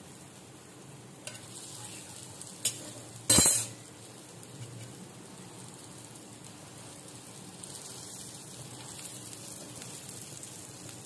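Egg paratha frying in ghee on a cast-iron tawa, a steady faint sizzle. A couple of sharp clicks come early, then a brief loud clatter a little over three seconds in.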